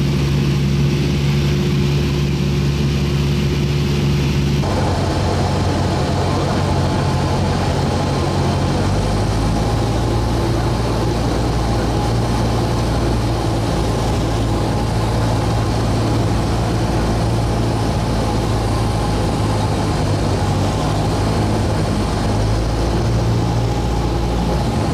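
Cessna's single piston engine droning steadily inside the cabin, mixed with wind rush, during the approach and landing roll. The drone steps down in pitch about five seconds in and again near nine seconds.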